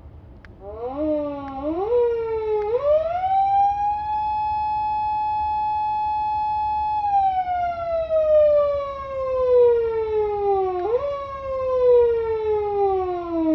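PATLITE SAP-500BK electronic police siren amplifier sounded by hand in manual mode. The wail is pushed up in a few quick steps, climbs to a high tone held steady for about three seconds, then slides slowly down. It is nudged back up in short jumps twice near the end.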